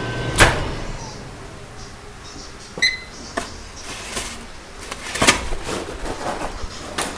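Microwave oven running with a steady hum that stops with a loud click about half a second in. A short electronic beep follows, then several clicks and knocks as the door and its contents are handled.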